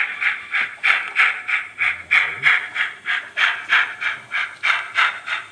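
Sound decoder of a model 141TA steam tank locomotive playing steady, hissing exhaust chuffs through its small onboard speaker, about three a second, as the locomotive runs.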